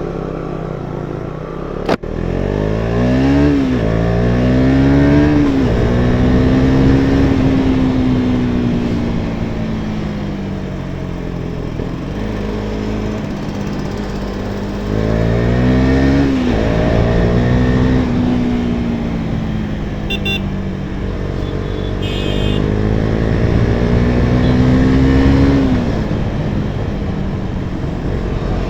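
KTM Duke 250's single-cylinder engine through an Akrapovič aftermarket exhaust with the catalytic converter removed, riding off. It revs up through two quick upshifts about two to five seconds in, then cruises. It pulls up again around the middle, holds a steady note and eases off near the end.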